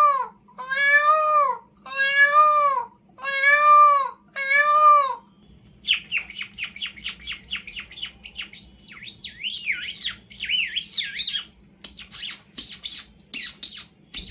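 A human mimic imitating a cat's drawn-out meows, one about every second, for the first five seconds. He then switches to imitating birdsong: rapid warbling chirps and trills, ending in short sharp chirps.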